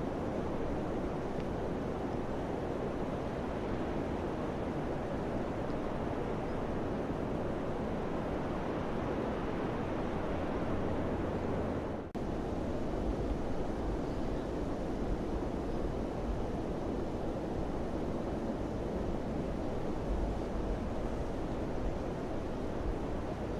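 Summer wind blowing steadily, a full rushing noise with a deep low rumble underneath, that briefly dips about halfway through.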